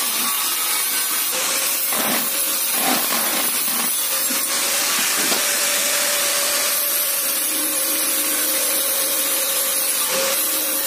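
Steady loud hiss with a faint steady hum, and a few light knocks of wooden beams against a steel frame in the first few seconds.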